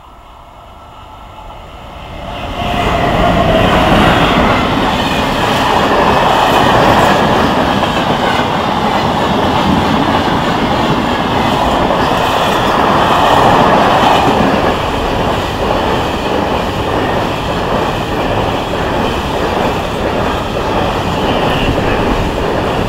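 SNCF freight train passing close by: it grows loud quickly about two to three seconds in as the locomotive arrives, then a long run of hopper wagons rolls past with a steady, loud rumble of wheels on the rails.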